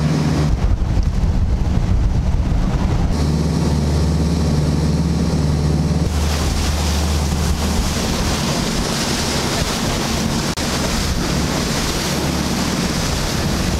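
Fishing boat under way, its engine running with a steady low drone beneath the rush of water from the wake and wind buffeting the microphone. From about six seconds in, the hiss of wind and spray grows louder.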